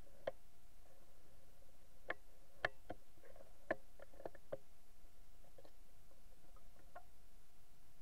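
Scattered small, sharp clicks and ticks, bunched together about two to four and a half seconds in, over a faint steady whine.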